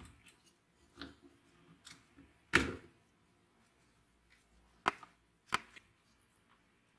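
Scattered clicks and knocks of metal and plastic parts being handled as the carburetor is worked off an old rusty chainsaw engine. There are a few separate knocks: the loudest about two and a half seconds in, then two sharp clicks near five seconds.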